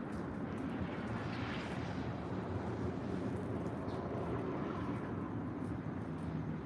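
Steady low rumble of distant engine noise, swelling a little about a second and a half in, with a few faint short bird chirps over it.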